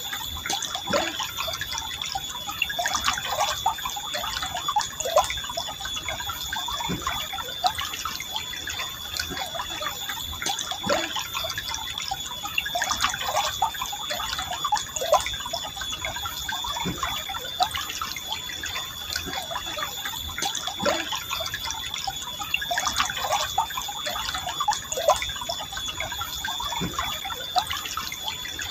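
Forest river flowing gently, with constant irregular gurgling and bubbling. A steady high-pitched whine sits underneath.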